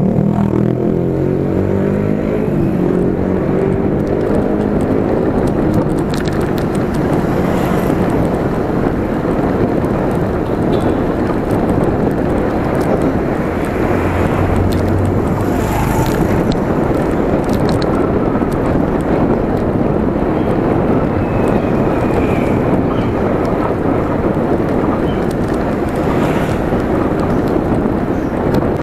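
Steady wind noise on the mic of a camera on a moving bicycle, mixed with street traffic. A motorcycle passes at the start, its engine note falling over the first few seconds. A car goes by about a quarter of a minute in.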